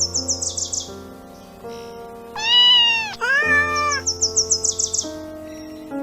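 Domestic cat meowing twice in quick succession, each meow rising and falling in pitch, over background music with sustained notes.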